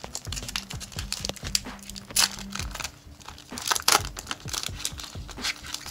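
A basketball trading-card pack's wrapper being torn open and crinkled by hand: dense crackling, with the sharpest bursts about two seconds in and again near four seconds.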